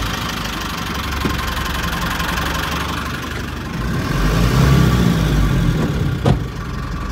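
Safari bus engine running, heard from inside the cabin as the bus drives along, the low rumble growing louder about four seconds in. A single sharp knock near the end.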